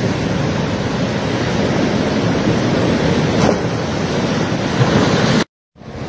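Heavy storm surf breaking and washing over shoreline rocks, a steady rush of water driven by a tropical storm; it cuts off abruptly near the end.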